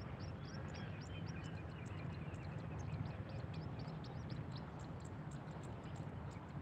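Open-air field ambience: rapid short high chirps from small animals, several a second, over a steady low rumble.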